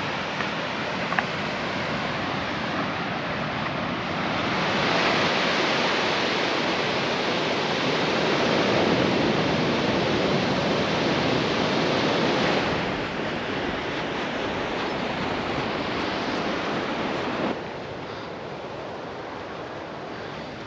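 Ocean surf washing onto a beach: a steady rushing wash that swells louder for several seconds in the middle and drops off abruptly near the end.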